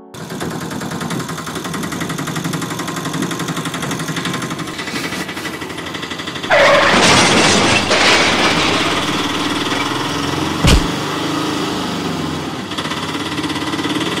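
Rapid mechanical rattling from a toy vehicle, turning louder and harsher about six and a half seconds in, with a single sharp click near the eleventh second.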